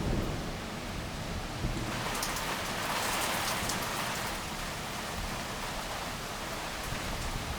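Heavy rain falling steadily, with drops spattering on a nearby surface, sharper and brighter from about two seconds in. The tail of a thunder rumble dies away at the start.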